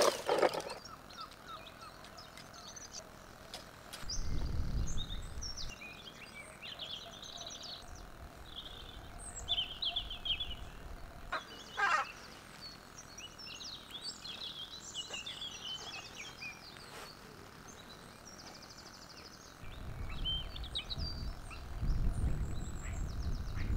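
Songbirds singing and chirping, many short calls overlapping throughout. Low rumbles of wind on the microphone come about four seconds in and again for the last few seconds, and there is a brief louder sound about twelve seconds in.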